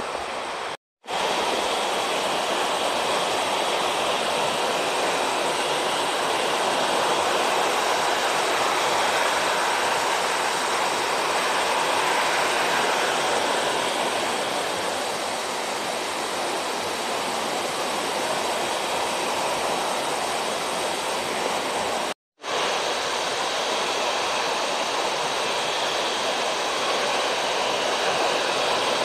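Steady rushing noise, even and unbroken apart from two brief dead-silent gaps where the video cuts, about a second in and about 22 seconds in.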